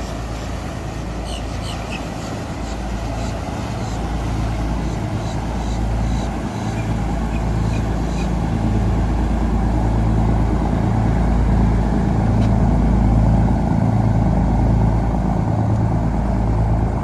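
Motorboat engine rumbling as a boat passes close by. The low, pulsing drone grows louder over the first dozen seconds, then eases a little near the end.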